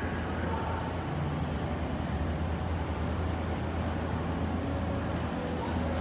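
Steady low background rumble with a constant hum, even throughout and with no distinct impacts.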